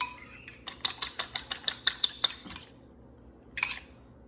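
A raw egg being beaten in a bowl: a utensil clicking rhythmically against the bowl's side at about six strokes a second, stopping about two and a half seconds in, with one more short clatter near the end.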